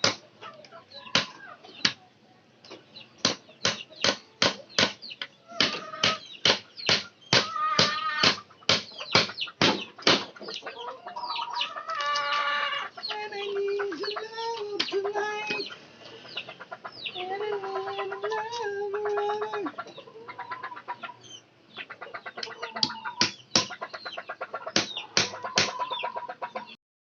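A long run of sharp knocks, several a second, that pauses in the middle and starts again near the end. In the pause come two long, pitched, fowl-like calls.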